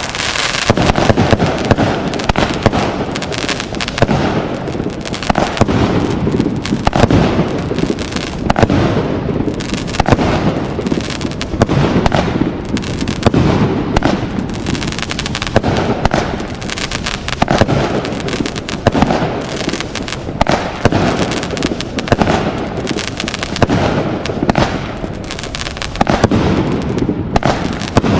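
A 36-shot consumer firework cake firing continuously, one shot after another in quick succession, the launches and bursts merging with crackle.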